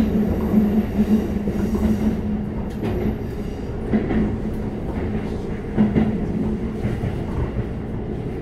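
Keikyu 600 series electric train, heard from inside the car, slowing into a station under its Toyo GTO-VVVF drive: a steady low hum, a faint high whine that stops about two seconds in, and a few clicks of the wheels over rail joints.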